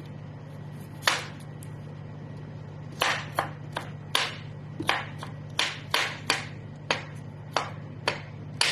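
Kitchen knife chopping a cucumber on a cutting board: one chop about a second in, then steady chops about two a second from about three seconds on, over a steady low hum.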